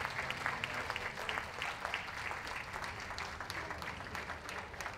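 Audience applauding: many hands clapping steadily together.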